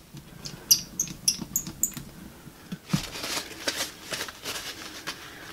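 A quick run of small sharp plastic clicks as the Texas Instruments Datamath II's circuit board and case are handled and fitted together, then a paper towel rustling as it wipes the calculator's plastic case.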